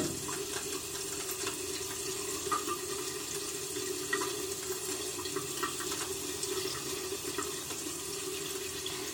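Bathroom sink tap running steadily into the basin as hands are rinsed under the stream, with a steady low tone under the splashing water.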